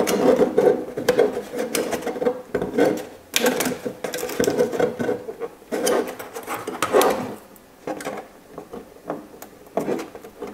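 Small scissors snipping along the edge of a clear polycarbonate RC car body shell, with the crackle and rustle of the thin plastic flexing as it is cut and handled. Louder spells come at the start, about three seconds in and around six to seven seconds in, and it quietens after about eight seconds.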